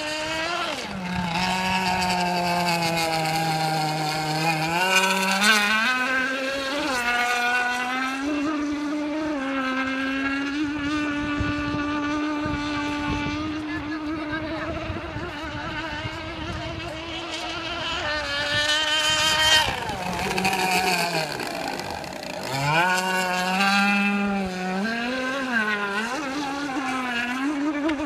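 A racing model hydroplane's motor whining at speed, its pitch dropping and climbing with the throttle and as the boat passes. It holds a steady high note for a long stretch, then falls off sharply about three quarters of the way through and winds back up.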